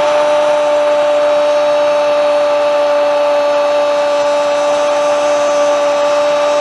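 A football commentator's long, drawn-out goal cry, one vowel held at a steady high pitch for the whole stretch over crowd noise, celebrating a Boca Juniors goal.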